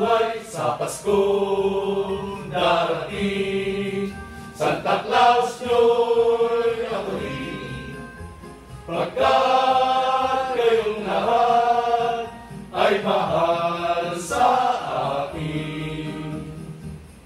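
A group of men singing together in chorus, in drawn-out phrases with short breaks between them, fading toward the end.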